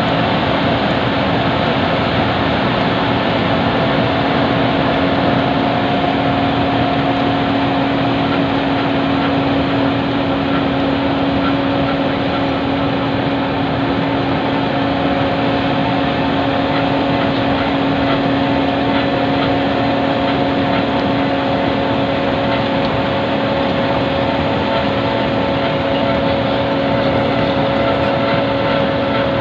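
Wirtgen W 100 H cold milling machine running steadily as it mills the old surface, a loud even grinding noise with a steady engine hum.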